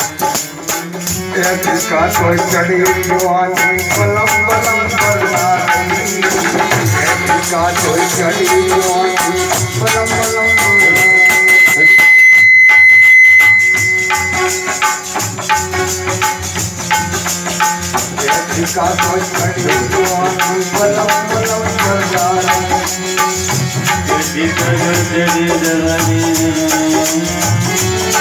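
Live Bundeli folk devotional music: a harmonium accompanying a singer, with hand percussion keeping a quick, even beat. A high, steady whistle sounds over the music for a few seconds near the middle.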